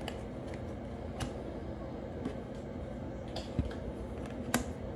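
Quiet room tone with a steady low hum, broken by a few faint, sharp clicks at irregular moments, the sharpest one near the end.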